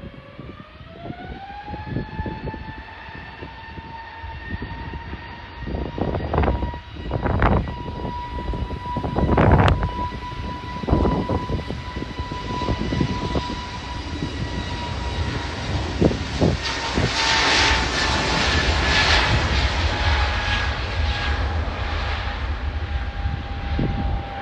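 Airbus A320-family airliner's turbofan engines spooling up to takeoff power: a whine rising in pitch over the first couple of seconds, then holding steady. Engine roar builds and swells in the second half as the aircraft accelerates down the runway, the whine dropping slightly in pitch near the end. Several low thumps of wind hit the microphone.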